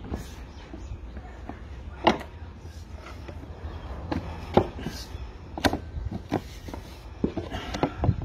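Wooden pallet boards being levered off the stringers with a homemade long-handled pallet breaker. There are irregular sharp cracks and knocks of wood and metal as the boards and nails give way.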